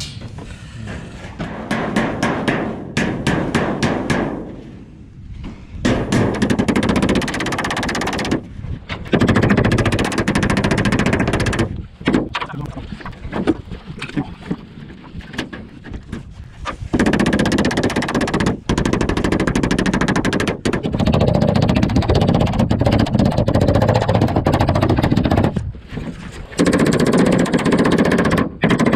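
A handheld power cutting tool cutting through sheet metal in rapid strokes. It runs in bursts of several seconds with short breaks, and the first few seconds hold a series of separate sharp knocks.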